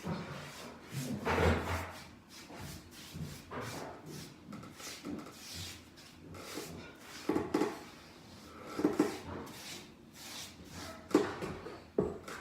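Hand tools scraping and knocking against plaster walls being made good, in irregular strokes, with sharper knocks about seven, nine and eleven seconds in.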